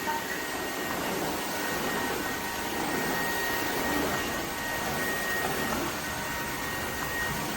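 Dreame H12S cordless wet-and-dry vacuum running: a steady rushing noise with a thin, steady high whine.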